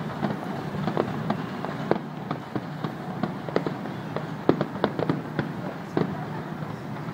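Aerial fireworks bursting in quick, irregular succession, several bangs a second, over a steady low rumble.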